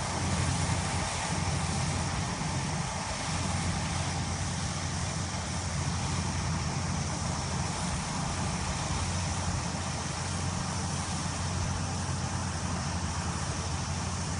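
Rice combine harvester running steadily as it cuts through a paddy, a constant engine drone with no breaks.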